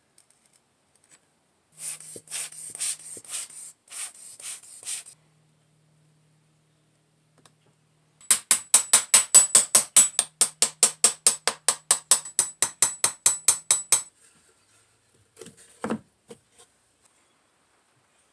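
Small metal spoon scraping and rubbing over packed oil-bonded molding sand around a pattern: a few seconds of short scrapes, then a fast, even back-and-forth rubbing at about six strokes a second for several seconds. A single knock follows near the end.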